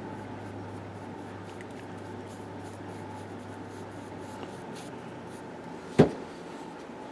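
Faint scratching of a paintbrush on carved wood over a steady low room hum, then about six seconds in a single sharp knock as the wooden carving is knocked against the table.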